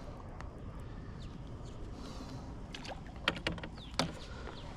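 Steady low outdoor background noise with faint short bird chirps, broken by a few sharp knocks about three to four seconds in.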